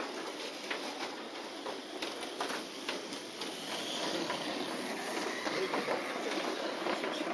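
Kyosho dNaNo micro RC race cars running round the track, their small electric motors and gears whirring, with a faint high whine that swells about four to five seconds in as the cars come through the bend, among scattered light clicks.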